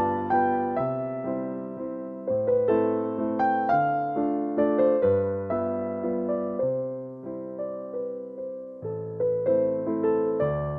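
Background music: a slow solo piano piece, single struck notes of a melody over a low bass line, each note fading after it is struck.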